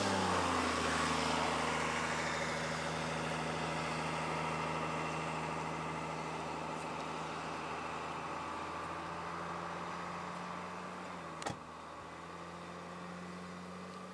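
Vehicle engine idling steadily, a low hum that fades slowly, with one sharp click about eleven and a half seconds in.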